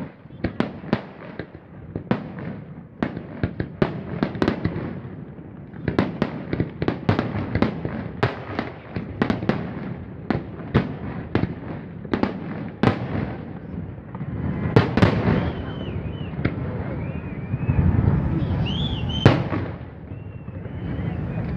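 Aerial fireworks shells bursting in rapid succession, a dense string of sharp bangs, several a second. In the last few seconds the bangs merge into a louder rumble, with a few high wavering tones over it.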